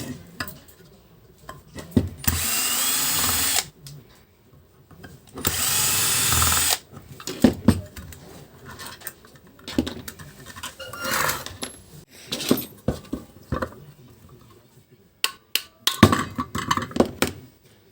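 Cordless screwdriver running in two short steady bursts, about a second and a half each and a few seconds apart, backing out the Torx bolts on a vacuum cleaner motor. Scattered clicks and knocks of metal parts being handled follow.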